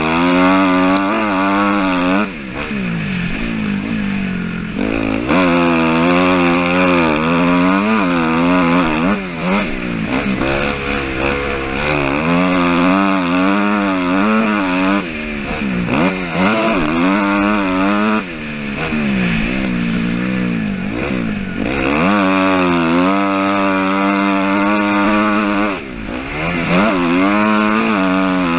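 Dirt bike engine heard on board, revving up and falling back again and again as the throttle is worked and gears change around a motocross track. The engine note shuts off briefly every few seconds before picking up again.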